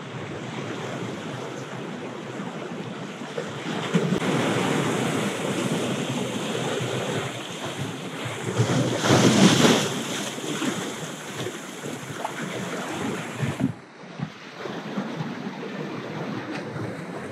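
Sea surf washing and breaking over a rocky shore, with wind buffeting the microphone; one louder surge of the waves partway through.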